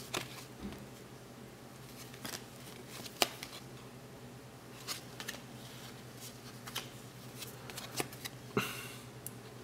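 Cardboard trading cards being flipped and slid off a hand-held stack one at a time: faint, scattered card clicks and rustles, over a steady low hum.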